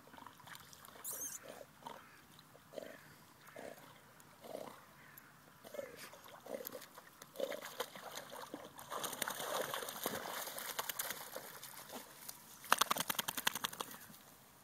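A dog swimming, breathing in short puffs as it paddles, roughly one a second, followed later by a louder stretch of splashing.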